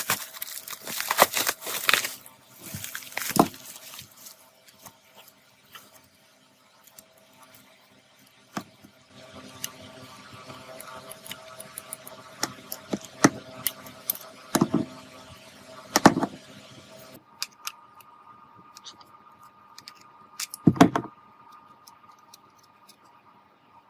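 Scattered sharp clicks and knocks of small parts being handled, with a quiet gap of a few seconds. A faint steady hum starts about nine seconds in and carries on under the knocks.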